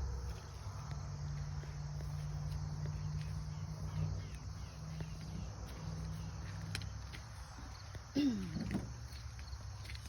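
Outdoor ambience of insects chirping and footsteps in grass, over a low steady hum. About eight seconds in there is a short swooping sound.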